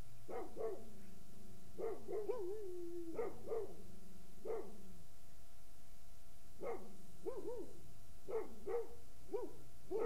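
Repeated short animal calls, mostly in pairs and threes with a bending pitch, and one longer sliding call about two and a half seconds in, over a faint steady hum.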